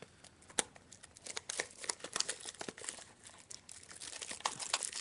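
A trading card pack's wrapper being torn open and crinkled by hand: irregular crackling that gets busier from about a second in.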